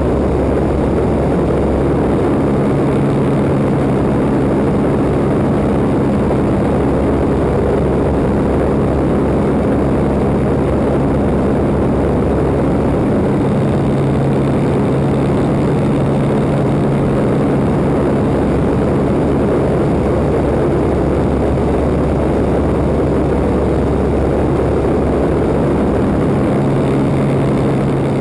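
1940 Waco biplane's engine and propeller running steadily in flight, under a heavy rush of air noise. The engine's drone shifts slightly in pitch a few times.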